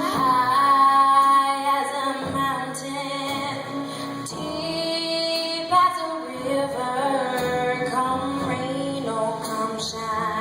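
Female jazz vocalist singing slow, long held notes over a band accompaniment with a low bass line, performed live.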